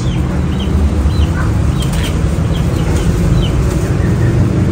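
Scattered short chirps from small birds over a steady, loud low rumble.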